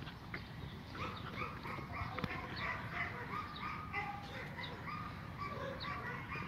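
Heideterrier puppy yapping in play, a run of short high-pitched yips and barks several a second, starting about a second in.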